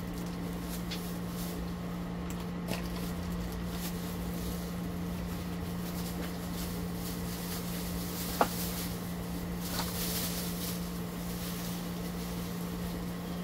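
Plastic shopping bag rustling and items being moved about on a table, with a few light clicks and one sharp knock about eight seconds in, over a steady low hum.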